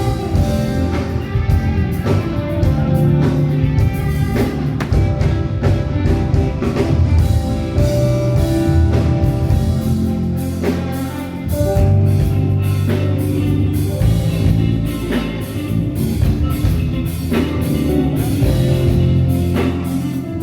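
A live band playing during a soundcheck: guitar and drum kit over held low bass notes, with steady drum hits throughout.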